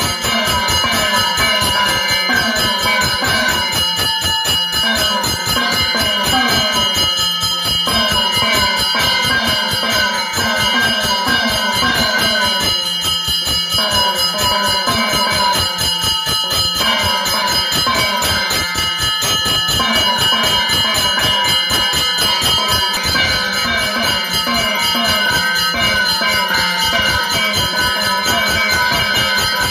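Temple puja bell ringing continuously over devotional instrumental music with a quick, steady beat, during an arati offering.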